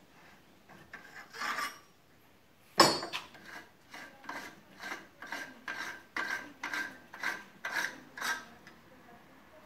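BSA A65 front fork seal holder being unscrewed with a homemade pipe tool: a sharp crack about three seconds in, then rasping, scraping strokes about two a second as it is turned.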